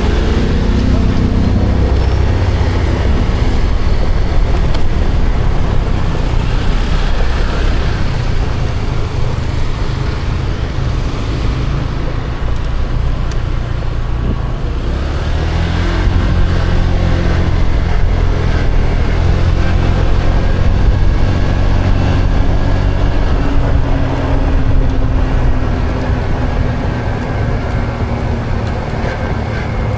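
A vehicle engine running while driving through traffic, with road and wind noise. The engine eases off about twelve seconds in, then pulls again from about sixteen seconds.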